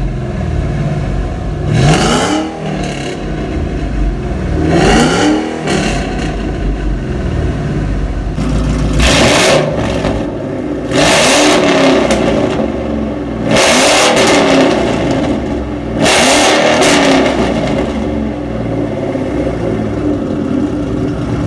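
Ford Mustang GT's V8 idling and being free-revved through an exhaust with headers and straight pipes, its catalytic converters and mufflers removed. Two quick revs come in the first few seconds, then four louder, longer blips in the second half, settling back to idle between them.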